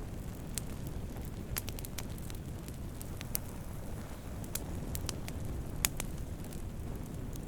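Wood campfire burning with a steady low rumble of flames and scattered sharp crackles and pops from the burning wood, the loudest pop a little before six seconds in.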